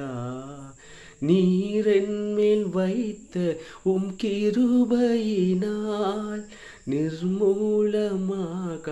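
A man singing a Tamil Christian devotional song unaccompanied, in three phrases of long held notes with short breaths between them.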